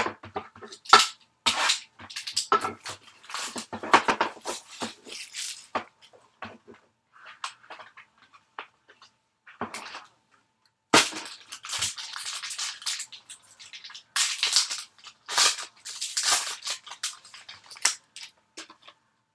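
Small cardboard trading-card box being pried open by hand and its contents pulled out: irregular cardboard and paper rustling, crackling and scraping, with a brief pause about ten seconds in.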